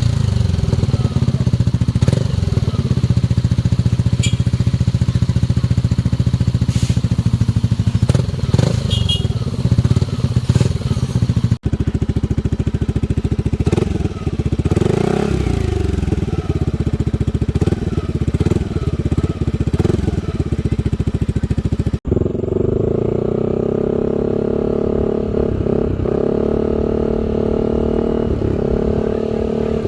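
Yamaha Aerox 155 scooter's single-cylinder four-stroke engine running through a newly fitted aftermarket carbon Villain exhaust, idling and being revved up and down. There are abrupt breaks about twelve and twenty-two seconds in, and the engine runs at a higher steady pitch after the second break.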